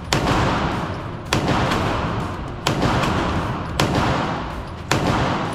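Pistol fired in slow, aimed single shots, five in all, about one every second and a quarter. Each shot echoes and fades in the indoor range.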